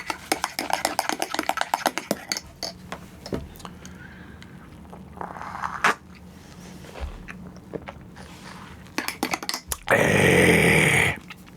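Irregular crackling clicks and pops, dense for the first few seconds and then scattered, followed by a loud burst of hiss lasting about a second near the end.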